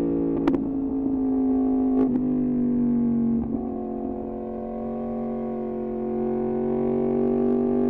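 Yamaha MT-10's crossplane inline-four through an Austin Racing exhaust, the engine note easing down over the first few seconds, dropping off briefly near the middle, then slowly rising again as the throttle comes back on. Two short sharp cracks sound about half a second and two seconds in.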